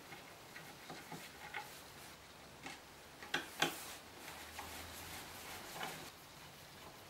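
Hand screwdriver working screws out of a chipboard cabinet: scattered faint clicks and scrapes of metal on screw heads and wood, with two sharper clicks about a third of a second apart near the middle.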